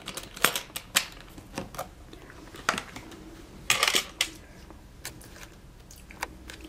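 Metal draw latches on a hard carrying case clicking open: a few sharp clicks, then a louder cluster of knocks and rattles as the case lid is lifted open about four seconds in, followed by a couple more light clicks.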